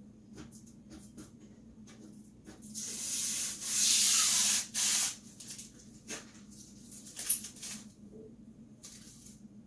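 Packing foam being rubbed and pulled: a loud scraping rub of about two seconds a few seconds in, then a shorter one, among light clicks and knocks of handling.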